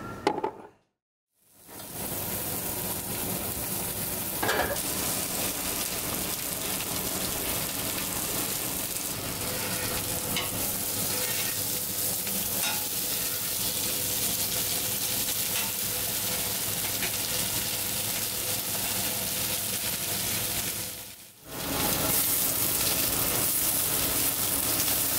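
Small minced-meat kebabs (kebapia) sizzling steadily on a hot flat steel griddle, with a metal spatula working under them near the end. The sizzle cuts out briefly about a second in and again near the end.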